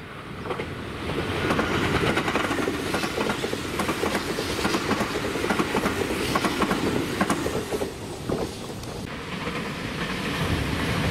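Electric train on the Tobu Skytree Line passing close by, its wheels clicking rapidly over the rail joints. The sound builds about a second in and eases off about nine seconds in, then a low rumble swells again near the end.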